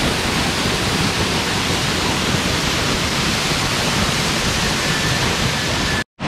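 Waterfall pouring down a rock face and splashing close by, a loud, steady rushing hiss. It cuts out abruptly for a moment near the end.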